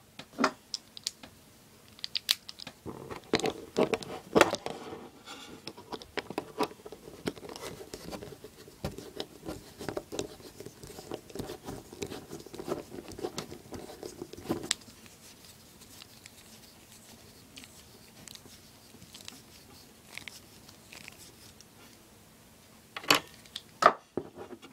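Clicks, scrapes and ticks of a screwdriver and small metal parts as a string-trimmer carburettor is taken apart, a screw being backed out. Busy handling noise for the first fifteen seconds or so, then only scattered ticks, with a couple of sharp knocks near the end.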